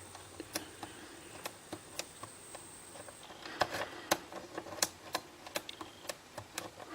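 Small, irregular clicks and ticks of a lock pick hook probing the pin stack of a Lockwood KIK pin-tumbler cylinder, pushing each pin in turn to count them (five).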